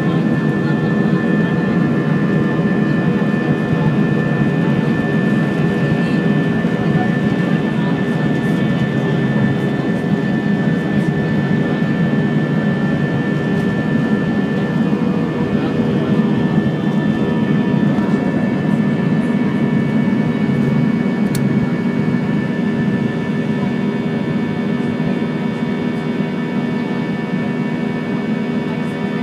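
Airbus A320 jet engines at takeoff thrust heard from inside the cabin over the wing: a steady loud rumble with several whining tones on top, through the takeoff roll and liftoff into the climb. The level eases a little near the end, once the aircraft is airborne.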